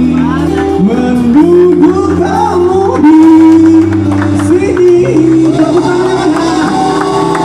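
A live band playing a pop song, with electric bass, acoustic guitar and drums under a singer holding long, wavering notes.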